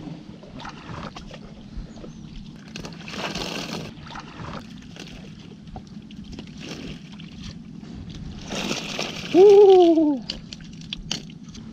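Shallow water sloshing and splashing as a hand net is worked through it from a small boat, with a louder splash about three seconds in and the loudest, longer splash about nine seconds in. A short rising-then-falling cry sounds over that splash.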